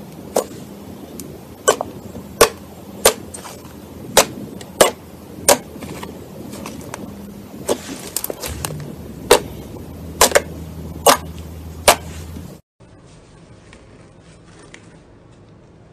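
Slime being pressed and poked, giving about a dozen sharp, irregular pops over a soft squishy hiss. About three-quarters of the way through it cuts off suddenly to a much quieter stretch with only faint crackling.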